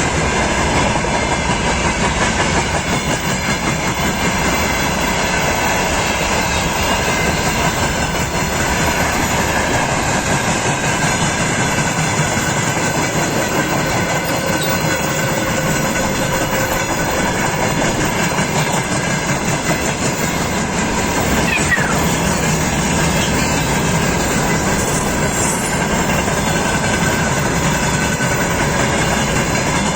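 Freight train wagons rolling past, their wheels clattering steadily over the rail joints.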